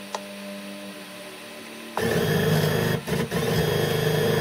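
Stepper motor driven by a TB6560 driver board, jogging an axis: a loud buzzing whine with several steady tones. It starts suddenly about two seconds in, drops out briefly about a second later, and runs on to the end.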